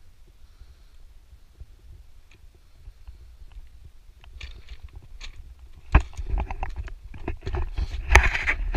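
Footsteps crunching and scraping on a loose rocky path, with a low wind rumble on the microphone. The crunching and sharp knocks start about six seconds in and grow louder toward the end.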